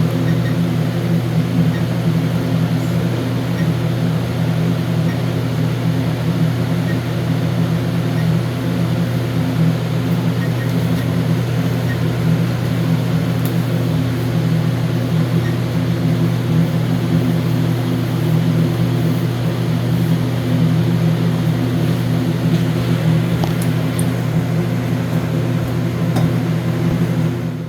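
Steady machine hum from a running motor or fan, holding one pitch, with a few faint clicks; it drops away sharply at the very end.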